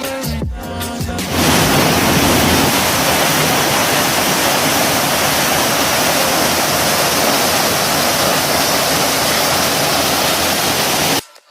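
Electronic background music for about the first second, then the loud, steady rush of a waterfall, which cuts off suddenly near the end.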